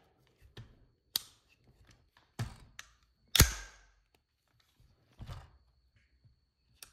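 Colt AR-15 carbine being handled after its bolt locked open: several separate metallic clicks and clacks, the loudest a sharp clack with a short ring about three and a half seconds in.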